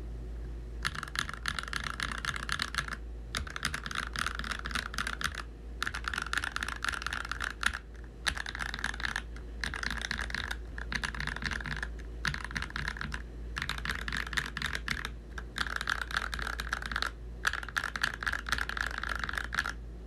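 Fast typing on an NK65 Entry Edition mechanical keyboard with Creampaca switches and Akko Neon double-shot keycaps: a rapid run of key clacks that starts about a second in and breaks off in short pauses every second or two.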